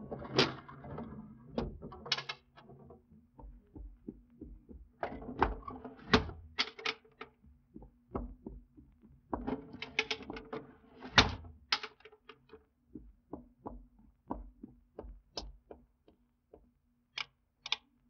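Old-time radio sound effects of someone moving about a room: footsteps on a hard floor and windows being slid shut and latched, a run of irregular knocks, bumps and clicks. Later on the sounds settle into a steady walk of light, evenly spaced steps.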